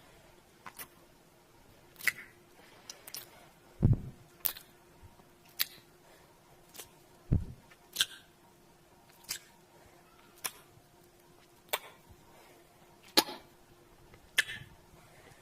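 Kissing sounds: a string of short wet lip smacks, about one a second, made close to the microphone. Two of them, around four and seven seconds in, land with a low thud.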